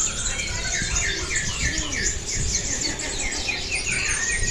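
Several songbirds singing together: one repeats short falling chirps, about four a second, while others chirp higher and faster over a low background rumble. Near the end a long, steady whistled note starts.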